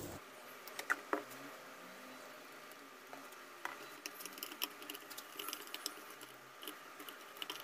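Faint scattered clicks, taps and soft squishing as hands rub salt and turmeric into two raw rohu fish-head halves on a plate, with the taps more frequent in the second half.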